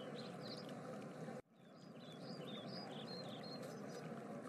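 Faint forest ambience: small birds chirping in short high calls, several a second, over a steady hiss and a thin steady tone. It cuts out briefly about a second and a half in, then resumes.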